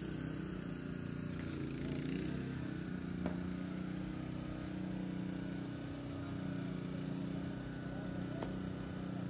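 An engine running steadily at a constant speed, a low even hum, with a sharp click about three seconds in.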